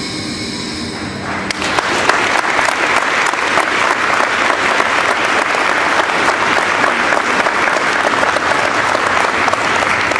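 Audience clapping, starting about a second and a half in as a held chord of music ends, then continuing steadily.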